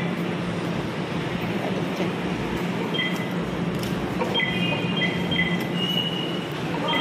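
Steady rumbling din of a rail station concourse with a low hum. Short high electronic beeps, typical of fare gates, come once about three seconds in and several times near the end.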